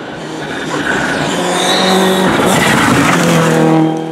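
A rally car approaching and passing at speed under hard throttle, getting louder about a second in and dropping away near the end, with a brief tyre squeal around the loudest point.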